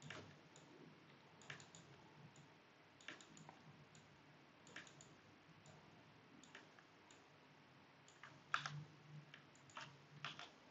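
Faint, irregular clicks of a computer mouse and keyboard, well over a dozen, with louder ones in the last few seconds.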